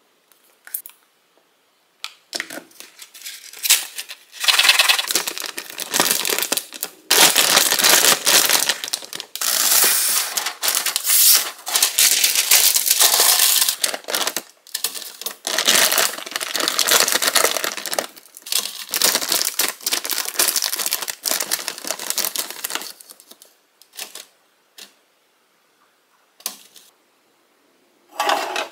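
Plastic bag of frozen chicken fries crinkling as it is handled and poured, with the frozen pieces clattering onto parchment paper in an air fryer basket. Near the end the crinkling stops and only a few light taps are left as pieces are set in place.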